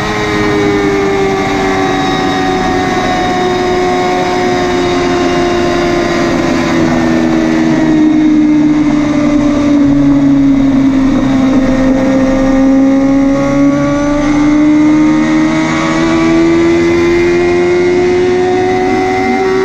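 BMW S1000RR inline-four engine with a Yoshimura exhaust, running continuously. Its pitch sinks slowly over about ten seconds and then climbs back.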